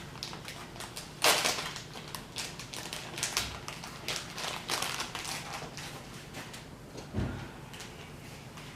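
Kitchen food preparation: a series of light clicks, taps and scrapes from utensils and containers, with a louder scrape about a second in.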